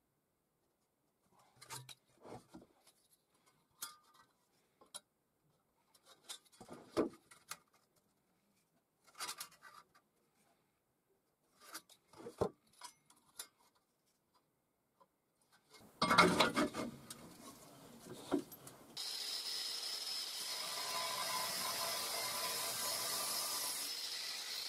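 Marker pen scratching a line onto a square steel tube, with short scrapes and knocks as the tube is handled. About sixteen seconds in, louder clanking as the tube is set in a vise. From about nineteen seconds an angle grinder runs steadily with a high whine, its cutting disc at the steel.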